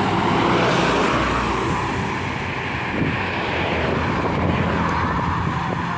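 Tour bus driving past: diesel engine running with steady road and tyre noise.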